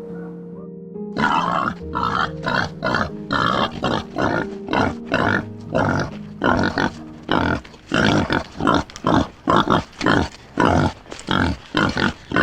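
Music for about the first second, then an animal giving a loud run of short, harsh calls, about two or three a second, coming faster toward the end.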